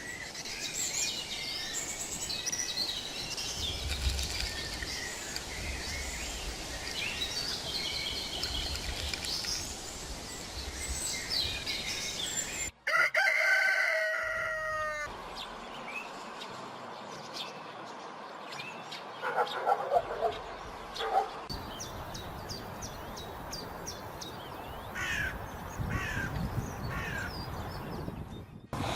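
Small birds chirping and singing, broken by a sudden cut, after which a rooster crows once, loud and falling in pitch. Scattered bird calls and a few short sharp sounds follow.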